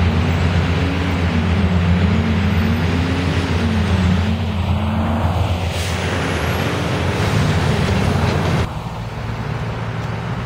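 Transit bus diesel engine running as the bus pulls away in traffic, a steady low hum with a wavering note above it, and a rush of passing-vehicle noise midway. About nine seconds in it cuts off abruptly to quieter street traffic.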